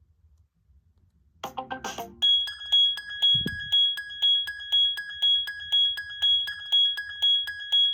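Ringtones played through the loudspeaker of a Samsung Galaxy Young (Telstra T3020) phone: after about a second and a half of near silence, a short run of notes, then a high chiming tone beeping steadily about twice a second. A soft low thump sounds once, about three and a half seconds in.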